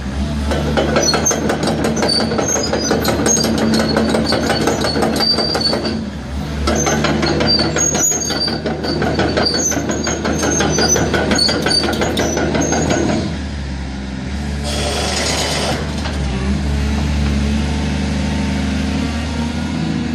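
Hyundai R380LC crawler excavator's diesel engine running under load, with dense metallic clatter and high squeaks from the undercarriage, typical of the steel tracks moving, for about the first 13 seconds. After that the engine keeps running more steadily, with a short hiss about 15 seconds in.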